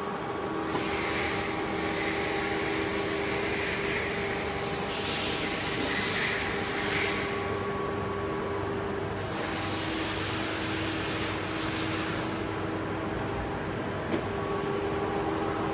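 Boehringer DUE 800 lathe running with a steady machine hum, overlaid by two long stretches of loud hissing, the first about seven seconds, the second about three, and a single click near the end.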